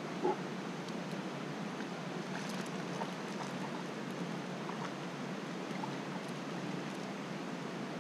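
Small woodland stream running over rocks, a steady even rush of water. A brief sharper sound stands out about a third of a second in.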